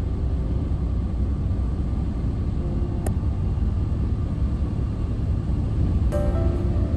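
Steady low rumble of a car driving at highway speed, heard from inside the cabin, with a sharp click about three seconds in and another near the end.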